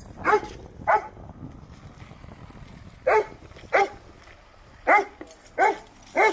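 A dog barking: seven short, loud barks, coming in two pairs and then a run of three.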